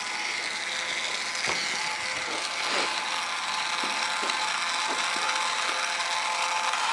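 Two small electric gear motors of a homemade Arduino robot running steadily with a whirring gear drone, switched on by the battery pack, with a few soft knocks.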